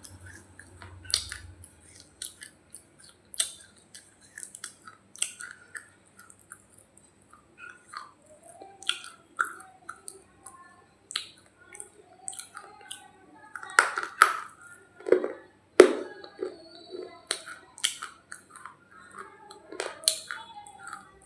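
Hard, dry roti being bitten and chewed close to the microphone: irregular sharp crunches and cracks, with a run of louder crunches about two-thirds of the way through.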